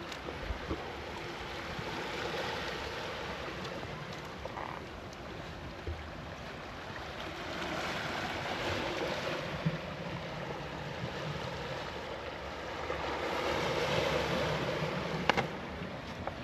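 Sea waves washing on a shore: a steady hiss that swells twice, with a sharp click near the end.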